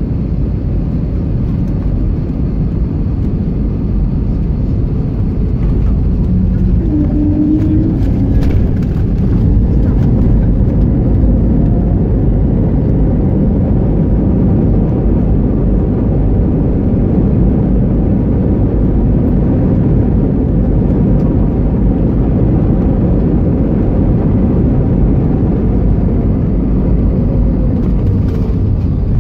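Cabin noise of an Airbus A321neo on its landing roll: a loud, steady rumble of engines and runway, growing a little louder over the first several seconds.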